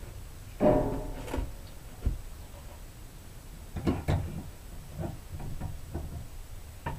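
Wooden boards being handled and fitted together: a creaking scrape just over half a second in, then a few sharp wooden knocks about four seconds in.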